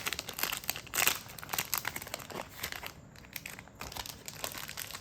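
Plastic trading-card packaging crinkling and rustling in the hands, in a quick irregular run of small crackles.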